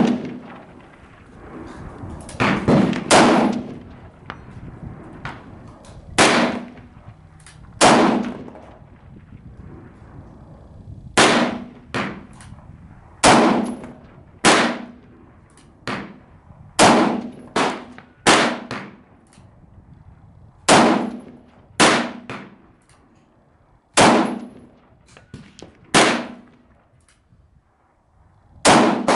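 AR-15 M4-style carbine firing single shots at a slow, uneven pace, about fifteen shots one to three seconds apart, each a sharp crack with a short echo.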